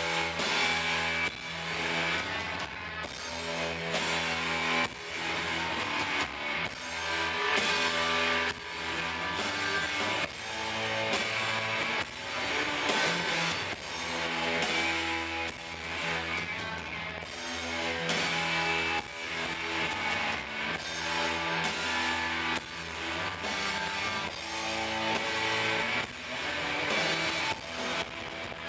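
Live rock band playing a song on electric guitars, bass guitar and drum kit, with a steady beat.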